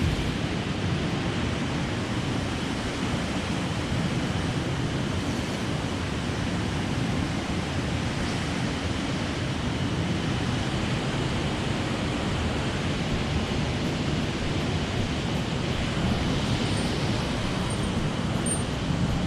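Mountain stream rushing over rocks: a steady, even water noise.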